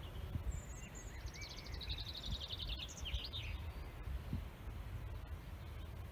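Outdoor ambience with a low rumble of wind on the microphone. A small songbird sings a fast trill of evenly repeated high notes from about a second in, lasting around two seconds, with a few chirps around it.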